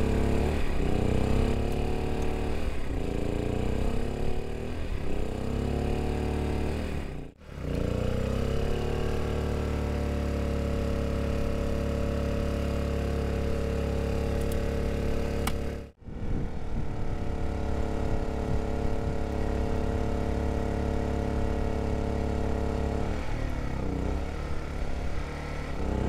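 A small engine running steadily with a low rumble, its pitch wavering up and down for the first several seconds and again near the end, holding steady in between. The sound breaks off briefly twice.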